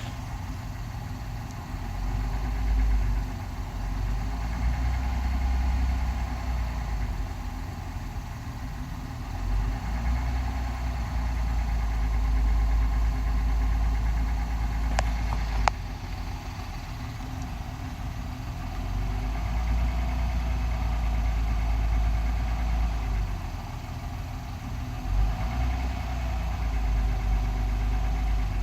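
2021 Honda Passport's 3.5-litre V6 running at idle and low revs with a knock, which the owner takes for a fault in the brand-new engine. Two sharp clicks about halfway through.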